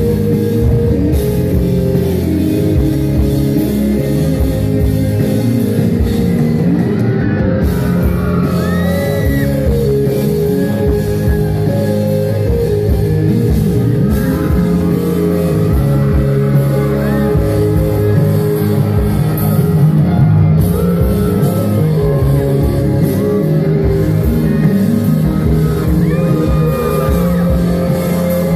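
Live band playing loud rock music with electric guitars and drums.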